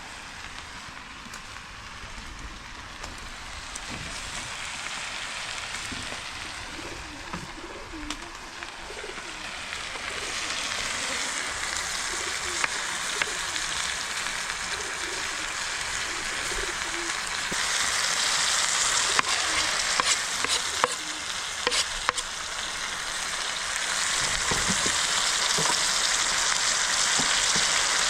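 Food sizzling as it fries in a pan. The sizzle grows louder in steps, as if more food is added, with scattered clicks of a utensil stirring against the pan.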